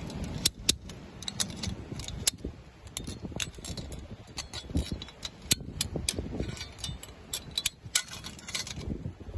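Inline ratchet wire tensioner being cranked with its handle tool to tighten a high-tensile wire, giving irregular sharp metal clicks about twice a second as the ratchet wheel advances.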